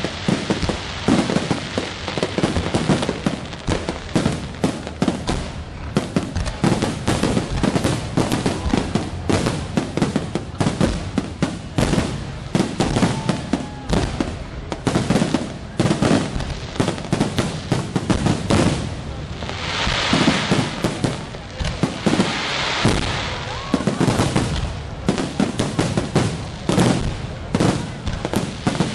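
Aerial firework shells bursting in a dense, unbroken barrage, several bangs a second.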